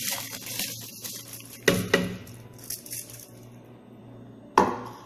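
Drained raw kaima rice pouring from a plate into a pot of hot water, the grains rattling and hissing for about three seconds. There are two sharp knocks just under two seconds in and another near the end.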